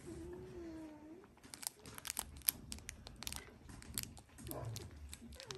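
An 18-day-old Dalmatian puppy gives one short wavering whine, then the puppies' bedding rustles and crinkles with a run of sharp clicks and scratches as they clamber about. A brief whimper comes right at the end.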